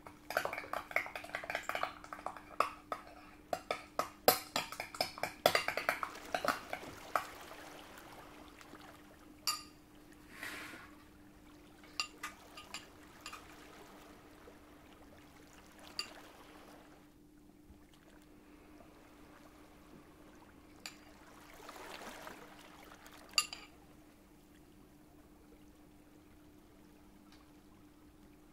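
Kitchen work with utensils and dishes: a quick run of clicks and clinks for the first several seconds, then scattered single taps and two brief soft pours of liquid, over a faint steady hum.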